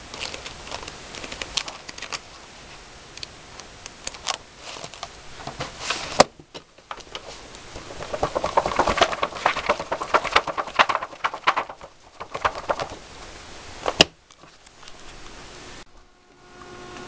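Handling noise: irregular rustling, knocks and clicks as objects and papers are moved about, with a denser crackly stretch in the middle and two sharp clicks about six and fourteen seconds in. A steady hum starts near the end.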